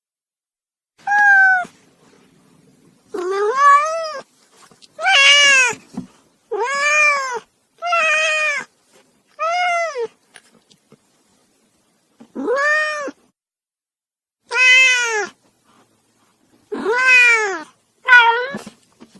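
Angry domestic cat yowling: a run of about ten drawn-out meows, each rising and then falling in pitch, one every second or two.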